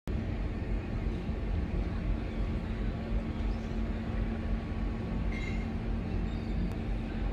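Steady low engine rumble with a constant hum, as from a boat's engine. A brief high-pitched call sounds a little past the middle.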